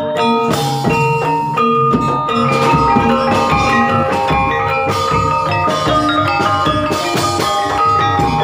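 Banyumasan gamelan music for an ebeg dance: metallophones ringing out a steady melody over drums.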